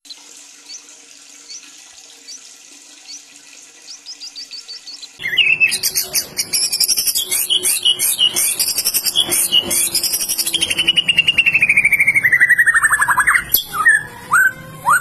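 White-rumped shama singing loudly: a varied, rapid song of chirps and trills, with one long trill falling steadily in pitch near the end. It is preceded by about five seconds of faint high chirps.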